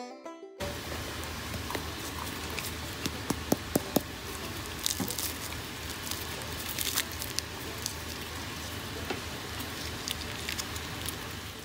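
The crisp fried pastry shells of cone samosas crackling and crunching as fingers squeeze them and break one open: irregular sharp crackles, the loudest a few seconds in, over a steady low hum. The crackle shows the shells are fried crisp.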